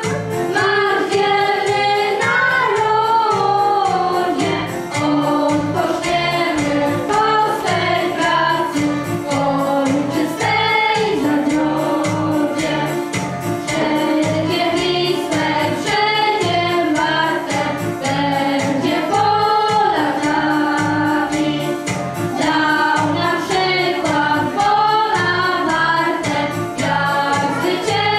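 Children singing a song to an instrumental backing with a steady beat.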